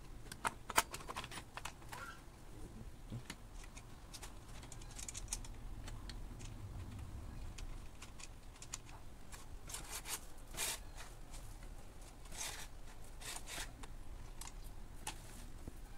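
Handling noise from unpacking a chainsaw kit: scattered clicks and taps of small plastic and metal parts, with a few short spells of rustling packaging.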